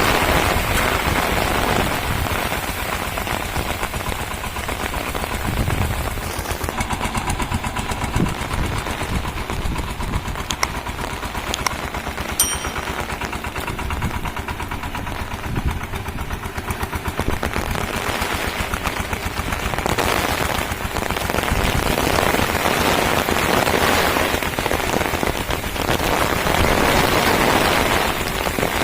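Shakti power tiller's single-cylinder diesel engine running under load, a fast steady chugging exhaust, with rain hissing over it.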